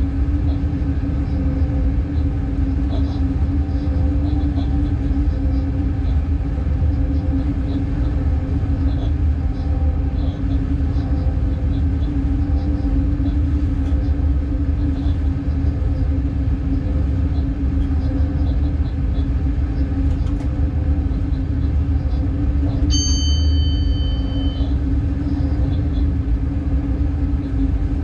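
Inside the cab of a Class 186 Bombardier TRAXX electric locomotive under way: a steady rumble of the running train with a constant low hum. About 23 seconds in, a short, high electronic beep sounds for under two seconds.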